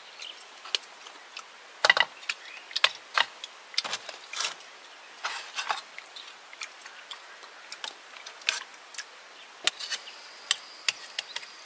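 Irregular sharp clicks and light knocks, roughly one a second, the loudest about two seconds in.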